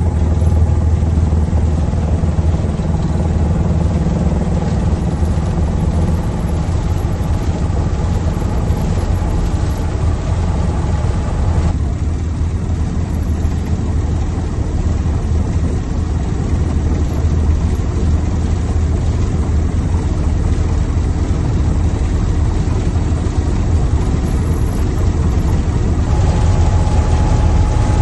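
Mi-24P helicopter's engines and rotor running steadily, a dense low drone with fast chopping. A steady higher whine joins near the end.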